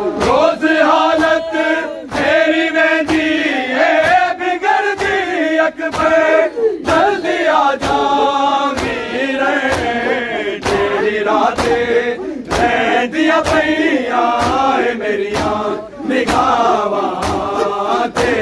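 A crowd of men chanting a Punjabi noha, a Shia lament, in unison, with a steady rhythm of hand slaps on bare chests (matam) beating through the voices about once or twice a second.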